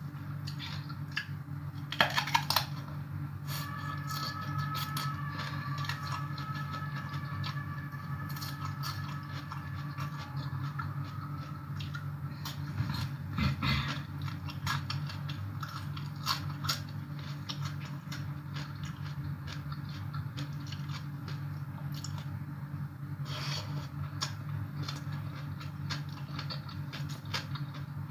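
Close-up eating sounds: papaya salad and raw vegetables crunched and chewed, with sharp clicks and light scraping as fingers pick food from the plate. A steady low hum lies underneath, and faint high steady tones are heard for several seconds early on.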